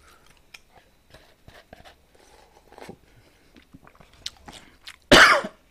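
A person eating close to the microphone: quiet chewing and small mouth clicks, then a loud half-second burst of eating noise about five seconds in.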